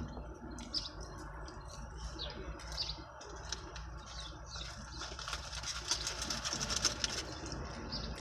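Small birds chirping about once a second over a low steady hum. From about five seconds in, a dense crackling rustle.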